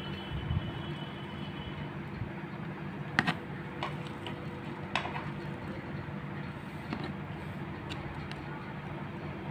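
A spoon clicking and tapping against a plastic food container as syrup-soaked bread slices are pressed into place: a handful of light clicks, the loudest about three seconds in, over a steady low hum.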